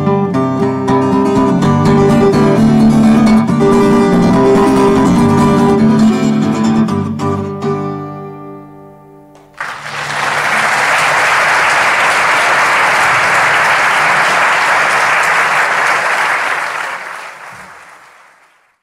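Acoustic guitar playing the closing chords of a folk song, ringing out and dying away about nine seconds in. Then an audience applauds for about seven seconds, fading out near the end.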